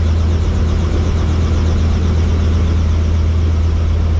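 Helicopter engine and rotor noise: a loud, steady low drone with a fast, even pulsing above it.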